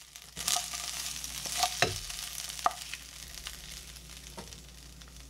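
Spicy chicken feet sizzling in a frying pan while a wooden spatula scrapes and pushes them out of the tilted pan. There are several sharp scrapes and knocks in the first three seconds, then the sizzle goes on more quietly.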